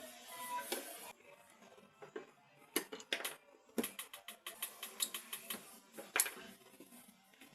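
Irregular sharp clicks and light knocks of small hard parts being handled and set down, a handful of them close together near the middle.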